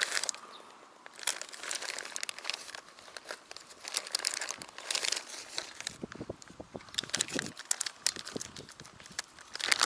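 Crinkling and rustling of a plastic packet and a fabric bag being handled, in irregular crackly bursts.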